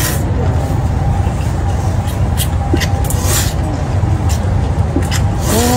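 Luosifen rice noodles slurped from a bowl in a few short, hissing bursts, over a steady low rumble.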